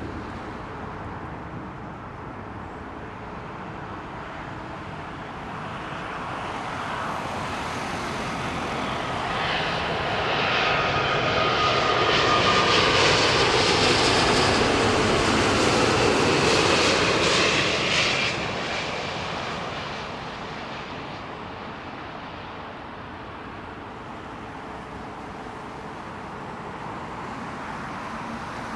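British Airways Airbus A350-1000's Rolls-Royce Trent XWB turbofans on landing approach, the jet noise swelling as the airliner passes close. It is loudest for several seconds near the middle, with a steady whine heard briefly as it builds, then fades away.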